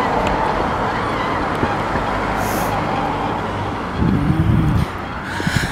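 Steady rushing of wind on the microphone and street noise from riding a bicycle along a city street, with a short hiss about two and a half seconds in and a brief low pitched sound about four seconds in.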